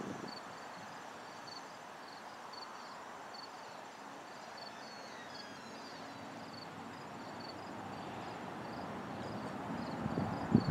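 Crickets chirping steadily, about two chirps a second, with a fainter high insect trill, over a low rushing background that grows louder near the end.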